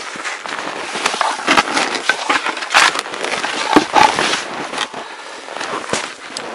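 Skis and boots crunching and creaking through deep snow, with a run of irregular crackles and knocks that is loudest in the middle.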